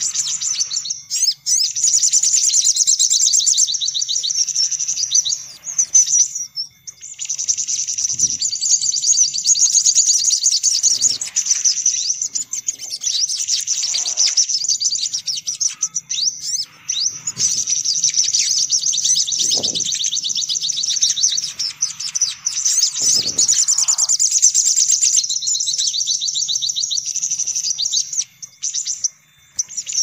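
Sunbird lure recording: many sunbirds chirping and twittering in dense, rapid high trills that run almost without a break, with short pauses now and then.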